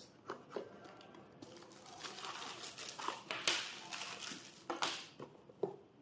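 Packaging being handled: a cardboard box opened and its contents, insoles in a plastic bag, a cable and a remote, taken out and laid on a wooden table. It rustles and crinkles, with a few light knocks as things are set down.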